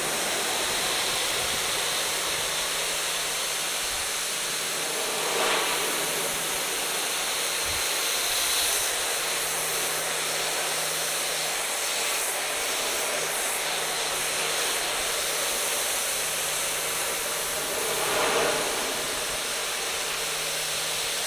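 Electric pressure washer's high-pressure water jet spraying steadily against vinyl siding, rinsing off degreaser, with a faint steady motor hum underneath. The spray gets louder twice, about five seconds in and near the end.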